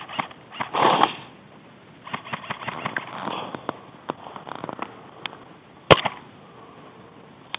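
Footsteps crunching through brush and dry twigs, with branches swishing against clothing and gear. A single sharp snap just before six seconds in is the loudest sound.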